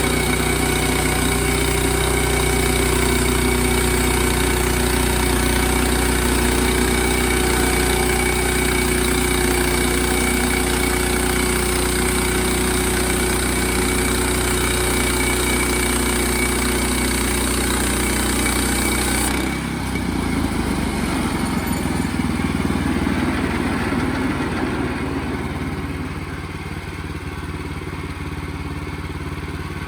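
Sawmill's gas engine running steadily under load; about two-thirds of the way through its sound changes abruptly, the high hiss dropping away as it settles to a lower, quieter run.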